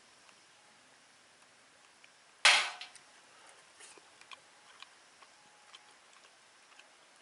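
Campfire firewood crackling with scattered faint ticks, and one sharp, loud pop about two and a half seconds in.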